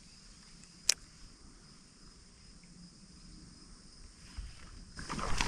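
Insects chirping in a steady high-pitched drone, with one sharp click about a second in. A louder rustle rises near the end.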